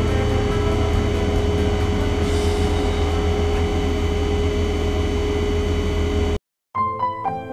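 Steady ventilation and equipment hum of a space station cabin: a low rumble with a few steady tones over it. It cuts off suddenly near the end, and soft piano music begins.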